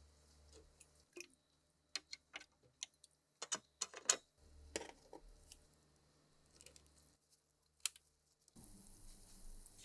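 Steel chains and rusted gun parts clinking sharply several times as they are lowered into a tank of water, with water dripping. A steady hiss starts near the end.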